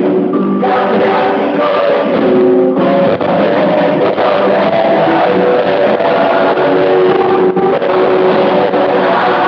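Rock band playing live at full volume: electric guitars, keyboards and drums, with a lead voice singing over them.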